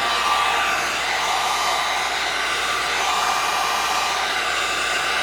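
Electric heat gun blowing hot air in a steady, even whoosh with a faint steady whine, running continuously while it shrinks vinyl tint film to a curved fog light lens and dries the water from under it.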